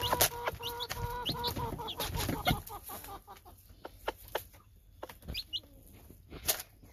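Hen clucking and chicks peeping, with quick sharp clicks of beaks pecking feed off plastic lids. The sounds thin out after about two and a half seconds.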